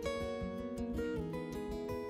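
Instrumental background music: acoustic guitar picking a melody over chords, the notes changing every half second or so.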